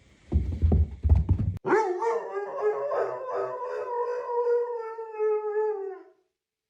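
A dog howling: one long howl lasting about four seconds, its pitch wavering slightly before it fades out. Before the howl there is a second or so of low thumping and rustling.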